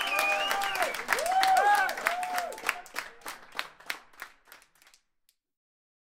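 A group of people shouting and cheering over rhythmic hand clapping, fading out to silence about five seconds in.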